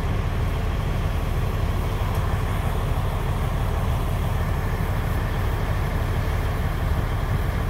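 Car engine idling: a steady low rumble, heard from inside the car's cabin.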